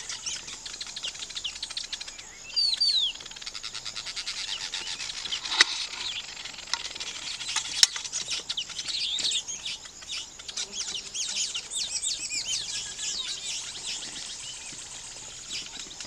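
Weaver birds chattering: a dense, continuous run of fast, buzzy chirping notes, with a louder call of a few quick downward-sliding whistles about two and a half seconds in. Two sharp clicks stand out, one about five and a half seconds in and one about eight seconds in.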